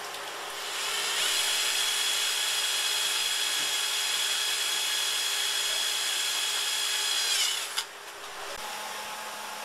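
Cordless drill running steadily for about seven seconds as it drives into the hub of a 3D-printed boat propeller, with a high whine. It spins up quickly at the start and winds down near the end, followed by a click.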